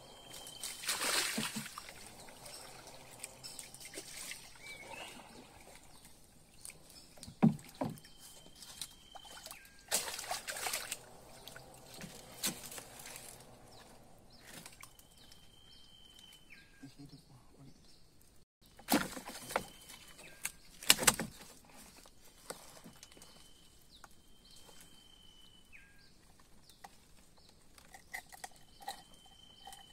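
Water sloshing and several sharp splashes at the side of a small wooden boat as a caught toman (snakehead) is handled at the waterline. A high, held whistling call that ends in a drop repeats every few seconds.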